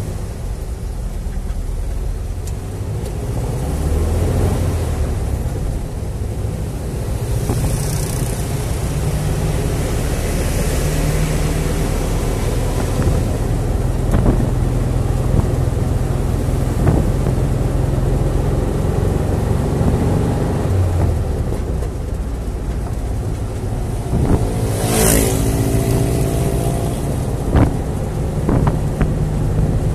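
Volkswagen Beetle's air-cooled flat-four engine running while driving in traffic, heard from inside the cabin with road noise; its pitch rises and falls as the car speeds up and slows. Near the end a loud, brief hissing rush stands out above it.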